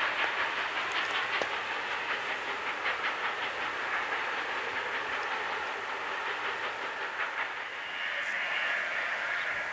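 Long, slow freight train of tank-container wagons rolling past, its wheels clicking steadily over the rail joints. Near the end the clicks thin out and a high steady squeal comes in.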